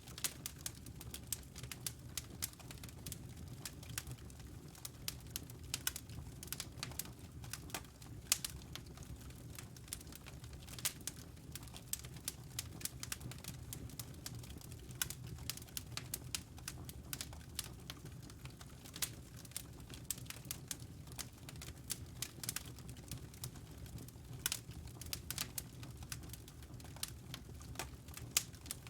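Wood fire burning in a fireplace: irregular crackles and sharp pops, several a second, over a steady low rumble of the flames.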